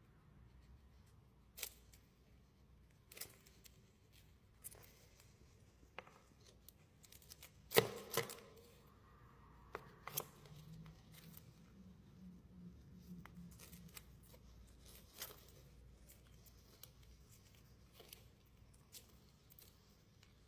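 Faint scattered sharp clicks and scratches from two scorpions fighting on sand, their pincers and legs clicking against each other. The loudest is a quick double click about eight seconds in.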